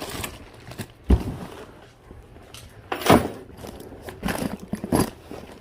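Objects being handled and rummaged through: irregular rustling with clicks and a few knocks, a dull thump about a second in and the sharpest knock about three seconds in.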